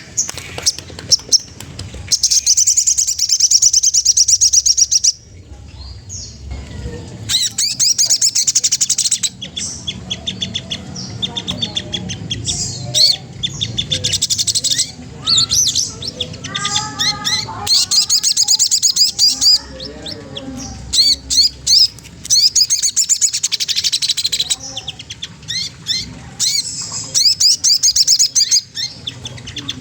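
Sogon trotol, a sunbird, singing a rival-provoking song: repeated fast, high trills lasting a second to a few seconds each, with softer chattering notes between phrases.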